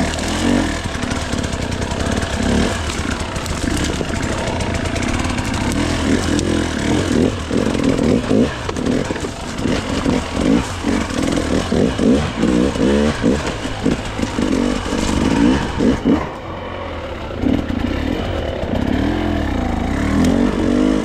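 Gas Gas dirt bike engine revving up and down in quick, uneven bursts as it is ridden through a rocky section, with a short easing-off about sixteen seconds in.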